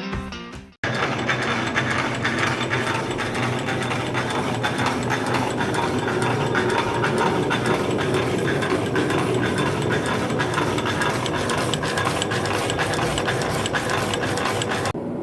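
A machine running steadily with a fast, dense clicking rattle, starting abruptly about a second in.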